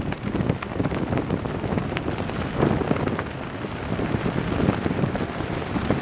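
Ocean surf washing and breaking, with wind buffeting the microphone in low, gusty rumbles.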